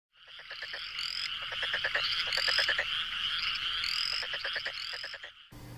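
Frogs calling: trains of rapid pulsed croaks, with a short rising chirp repeating every second or so over a steady high trill. The calls cut off suddenly near the end.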